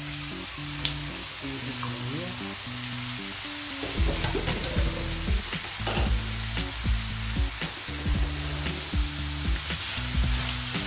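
Onions frying in oil in a pan, sizzling steadily as they are stirred. Background music with a simple low melody plays underneath, and a beat comes in about four seconds in.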